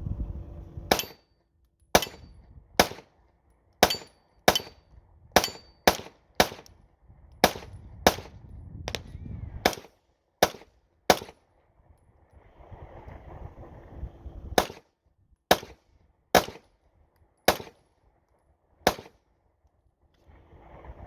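9mm Glock pistol firing a string of about twenty single shots at a steady, unhurried pace of roughly one every half second to a second. The shots pause for a few seconds a little past the middle, then resume.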